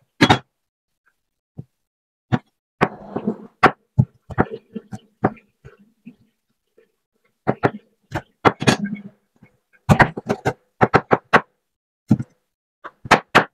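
Kitchen knife knocking and scraping on a wooden cutting board in irregular strokes as raw chicken drumsticks are trimmed of skin.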